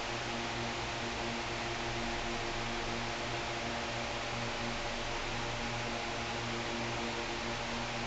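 Steady hiss with a low, even hum: workshop background noise, with no distinct event.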